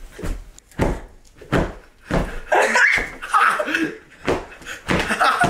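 A string of sharp knocks, about half a dozen in five seconds, with a person's voice calling out between them.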